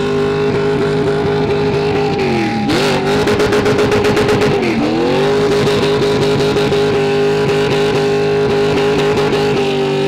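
Super stock race car's engine held at high revs in a stationary burnout, its rear tyres spinning and smoking. The revs dip briefly twice, at about two and a half and five seconds in, and climb straight back.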